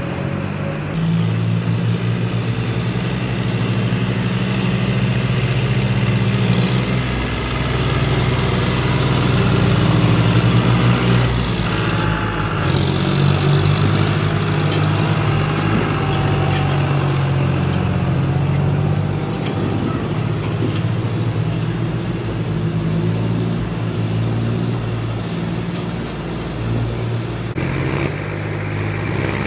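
Farm tractor diesel engines running under load, their low engine note shifting up and down in pitch as they labour over a rough, rocky track.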